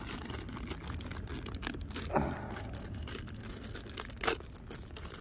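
Thin clear plastic bag crinkling and tearing as it is pulled open by hand, with louder rustles about two seconds in and again near four seconds.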